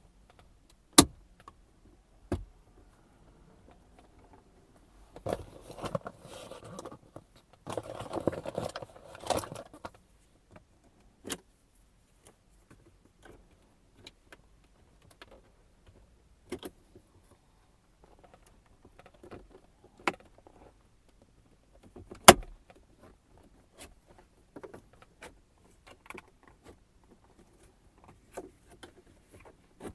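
Plastic shifter trim panel of a 2008 Infiniti EX35 console being pried up with a trim tool: scattered sharp plastic clicks and taps, with two short spells of scraping and rattling in the first third and the loudest snap a little past the middle.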